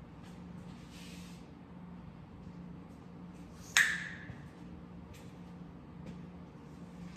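Quiet handling noises while tools are searched for, with one sharp clank about four seconds in that rings briefly, over a faint steady hum.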